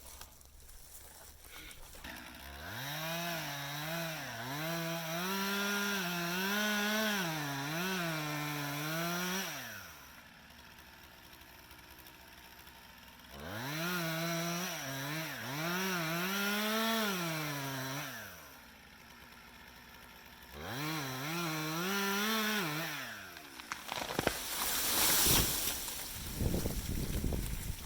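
Two-stroke chainsaw revved up and cutting in three bursts, its pitch wavering under load and dropping off between cuts, typical of making a felling back cut in a small pine. Near the end comes a few seconds of loud crackling and crashing.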